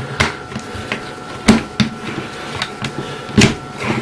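Hard plastic parts of a transforming robot figure clicking and knocking as its leg is pulled out and worked into a plastic foot-plate add-on: a few separate sharp clicks, the loudest about a second and a half in and again near three and a half seconds.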